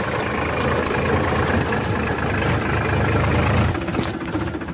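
A Powertrac Euro 50 tractor's diesel engine running steadily as the tractor is driven, heard from on board. Near the end the level drops and the sound changes.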